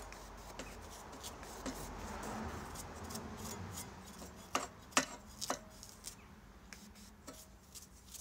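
A hand-pump spray bottle squirting liquid onto the rusty guide-bar bolts of a vintage chainsaw, a series of short, sharp spritzes with three louder ones close together about halfway through.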